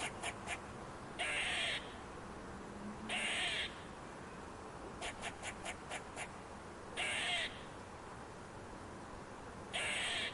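Squirrel calling: four harsh, rasping calls of about half a second each, spaced a few seconds apart, with runs of short quick chirps between them.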